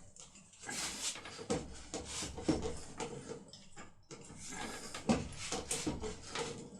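A force rod wedged into a GERDA lock cylinder being rocked side to side, metal scraping and squeaking as the cylinder is worked loose from its press fit. It comes in two long bouts with a short break about four seconds in.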